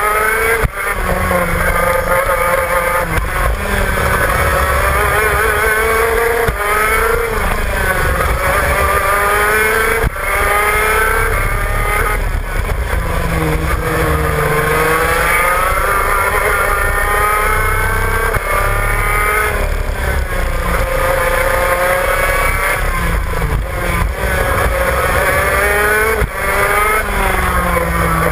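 Shifter kart's two-stroke engine at race pace, its pitch climbing again and again as it accelerates through the gears and dropping sharply at each shift or lift off the throttle, with a steady low rush underneath.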